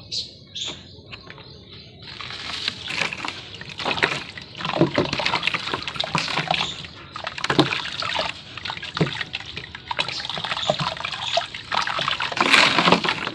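Dried sand-and-cement shapes dipped into water: sloshing with a dense crackle of short sharp clicks as the water soaks in. It gets louder about two seconds in, and is loudest near the end.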